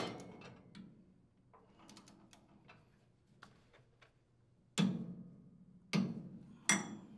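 Torque wrench on a flywheel nut: a run of faint ratchet ticks as the handle is swung back, then three sharp metallic clicks with a short ring in the last two and a half seconds, the wrench clicking over as the nut reaches its 60 foot-pound setting.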